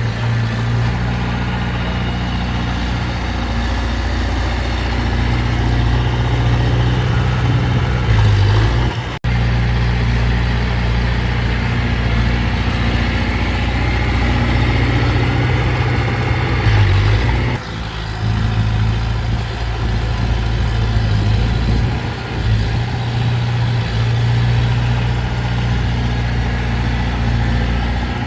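Heavy diesel engine of earthmoving machinery running steadily, with a brief sharp dropout about nine seconds in.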